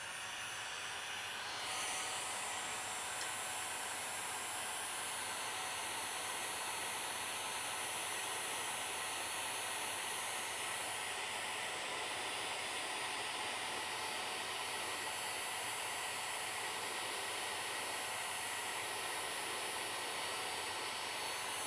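Hot-air heat gun blowing steadily, coming up to full flow about a second and a half in, shrinking glue-lined heat-shrink tubing over a spliced wire.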